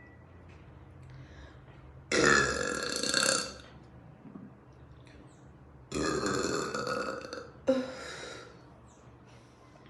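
A woman burping loudly: two long belches of about a second and a half each, about two and six seconds in, the second ending in a short extra burp.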